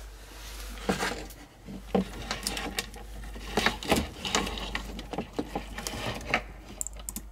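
Handling noise: irregular clicks, knocks and rustling of CCTV power and video cables and their plastic connectors being moved about, with a few sharper knocks and a quick run of small clicks near the end, over a steady low hum.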